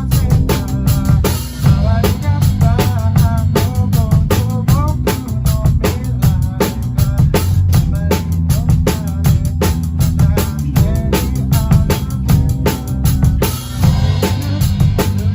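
Live band of drum kit, bass, electric guitar and keyboard playing a pop-rock song, the drums keeping a steady, driving beat over heavy bass and a melody line.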